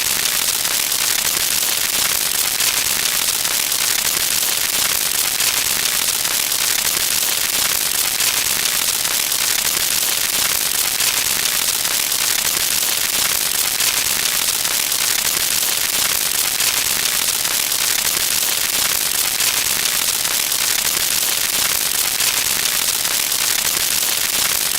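Continuous dense crackling with a bright, hissy top and no let-up in level, like a looped electric crackle sound effect.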